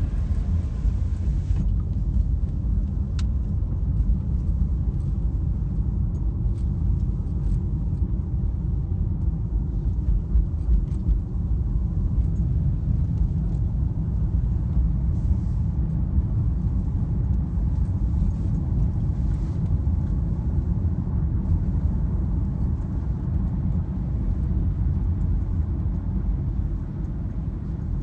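Steady low rumble of a car driving along, road and engine noise heard from inside the cabin.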